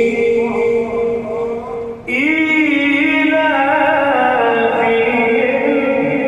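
Male reciter's voice chanting Quran recitation, drawing out a long melodic phrase. A held note ends and a new phrase begins about two seconds in, rising at first and then stepping down in pitch.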